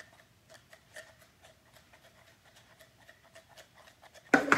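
Dice rattling softly inside a cup as it is swung and shaken for dice stacking: faint clicks a few times a second, the quiet rattle that shows the dice are moving correctly. Near the end, a loud clatter as the cup comes down on the table.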